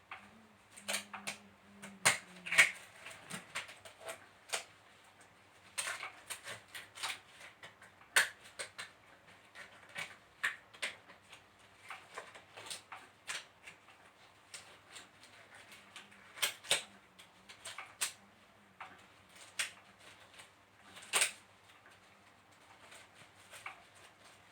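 Irregular crinkling, rustling and sharp clicks of a disposable face mask and gloves being handled and pulled on, with a few louder snaps scattered through.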